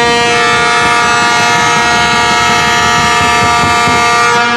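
A horn in a basketball arena sounding one long, steady blast that cuts off near the end, with a basketball being dribbled on the hardwood floor beneath it.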